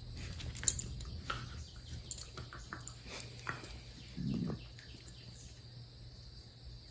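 Two dachshunds play-wrestling on a blanket-covered couch: scuffling and rustling with small snorts and grunts, and a short, louder low sound just after four seconds in.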